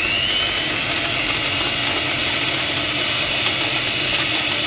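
Electric hand mixer running at a steady speed with a high whine, its beaters whipping melted chocolate, whipped cream and icing sugar into a thick ganache.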